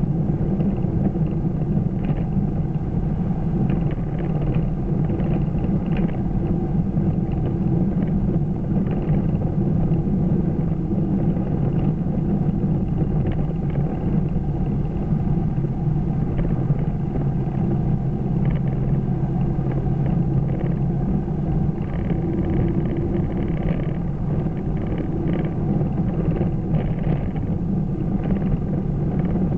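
Steady low rumble inside a car's cabin as it cruises at a constant speed: engine drone mixed with tyre and road noise.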